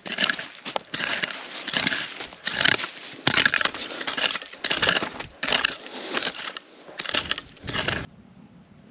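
Loud crunching rustles in an even rhythm, about two a second, cutting off abruptly near the end.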